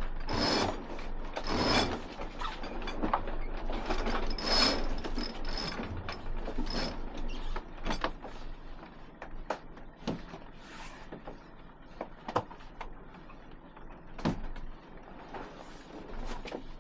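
Yacht cockpit winch ratcheting as a sheet is hauled in to trim the sail after a tack. It is heaviest in the first seven seconds or so, then thins to scattered clicks.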